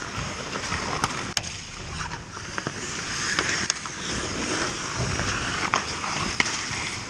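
Ice hockey skates scraping and carving on rink ice, with several sharp clacks of sticks and puck scattered through.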